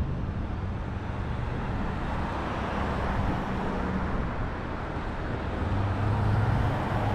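Steady road traffic noise, with the low hum of a nearby vehicle engine that grows louder about six seconds in.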